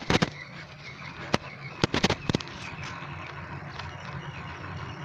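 A handheld phone knocking and clattering as it is fumbled and nearly dropped during a ride: a cluster of sharp knocks in the first two and a half seconds, then a steady low rumble of riding.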